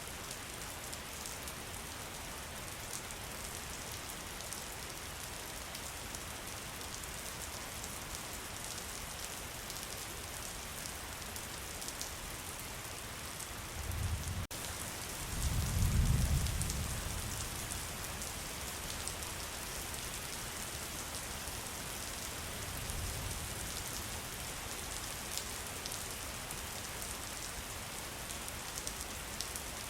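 Steady rain falling, with fine ticks of individual drops throughout. About halfway through, a low rumble of distant thunder swells for around three seconds and is the loudest moment.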